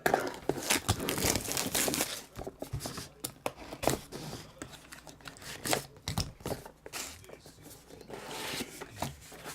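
Packaging on a hobby box of hockey cards being torn open by hand: irregular tearing, crinkling and rustling, busiest in the first couple of seconds and then sparser.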